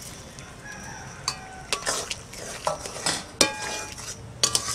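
Fried small prawns slid off a brass plate into a metal kadai of simmering curry, then a metal spatula stirring and knocking against the kadai, with several sharp clinks that ring briefly.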